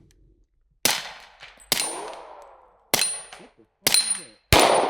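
Pistol shots fired in quick succession at a steel dueling tree, about six shots roughly a second apart and closer together near the end. The hit steel plates clang and ring after the shots.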